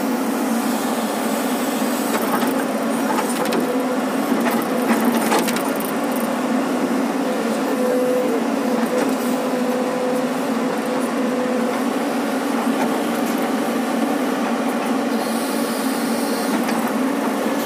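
JCB tracked excavator's diesel engine and hydraulics running steadily under digging load, heard from inside the cab. A few sharp clicks and knocks come in the first few seconds, and a higher steady whine joins for a few seconds midway.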